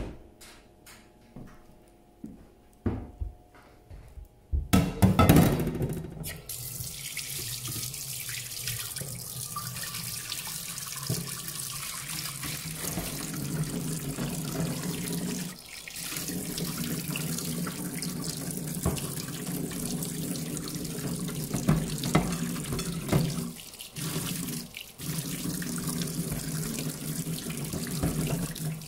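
An oven door pushed shut with a knock, a few quieter knocks, then from about five seconds in a tap running steadily into a stainless steel sink while a plate is rubbed clean by hand under the stream, with short breaks in the flow twice.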